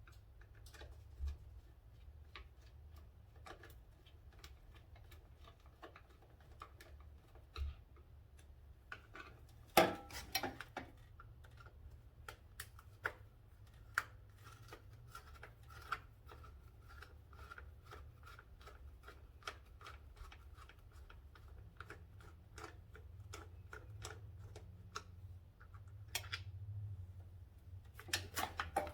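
Scattered small clicks, taps and rattles of hand work on a motorcycle's wiring, disconnecting electrical connectors, with a louder clatter of knocks about ten seconds in.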